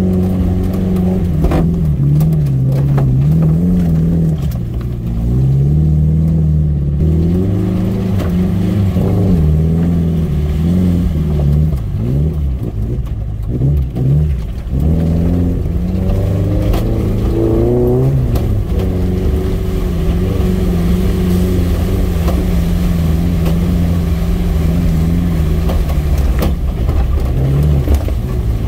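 Off-road 4x4's engine working under load on a muddy track, its revs rising and falling again and again, with a few knocks mixed in.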